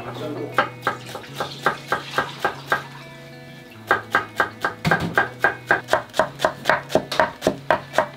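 Kitchen knife chopping green onion on a wooden cutting board: quick, even strokes, about four to five a second, with a short pause around three seconds in before a longer run. Background music plays underneath.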